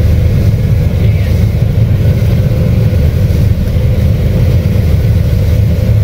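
Combine harvester running under load while harvesting soybeans, heard from inside the cab as a loud, steady low rumble.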